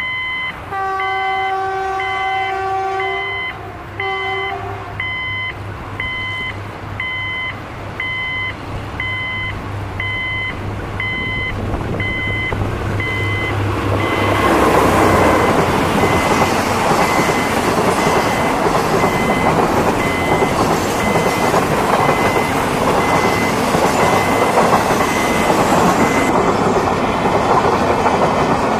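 A level-crossing warning signal beeping about once a second while a GEK diesel locomotive approaches and sounds its horn twice, a long blast then a short one. About halfway through the locomotive passes close by, its engine hum giving way to the loud rolling clatter of a long train of steel box wagons.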